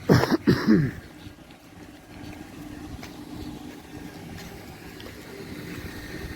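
A brief, loud vocal sound with falling pitch in the first second, followed by a faint steady low hum.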